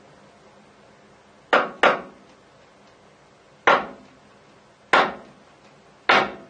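Hammer tapping the refitted gap bed piece of a Harrison M300 lathe to nudge it into line with the main bed. Five sharp taps: a quick pair, then three more each a second or so apart.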